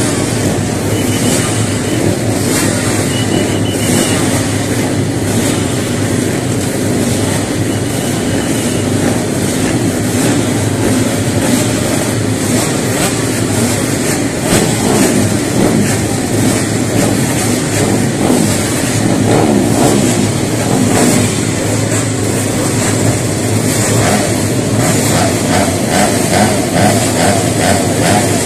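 Several small racing motorcycle engines running and being revved, with quick throttle blips, as the bikes pull away one after another.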